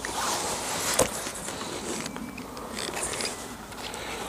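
Fishing tackle being handled: rustling and scraping of a landing net and pole, with one sharp knock about a second in.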